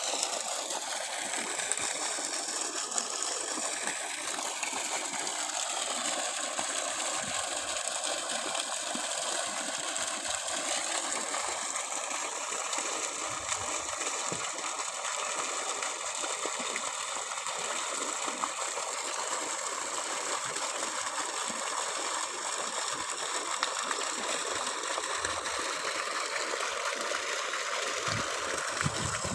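Water gushing steadily from the discharge pipe of a running 3 HP submersible pump, a constant, even rush.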